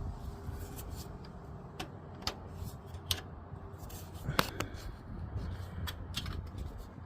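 Scattered sharp clicks and scrapes of a hand tool prying at the shifter cable's clip on a Chevy Express van, the loudest about four seconds in, over a low steady hum.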